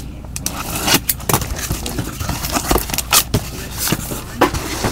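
Plastic wrap crinkling and cardboard scraping as a sealed hockey card hobby box is unwrapped and opened by hand: a quick irregular run of sharp crackles, clicks and rustles.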